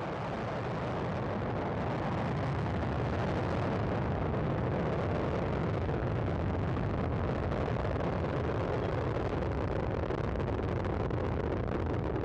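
Soyuz-FG rocket's four strap-on boosters and core-stage engine firing just after liftoff: a steady, deep roar that swells a little over the first couple of seconds, then holds even.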